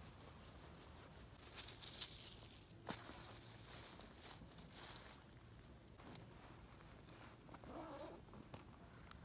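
Rustling and crinkling of tent fabric and a nylon bag handled by hand while packing up, with a few sharp clicks. A steady high-pitched insect drone runs underneath.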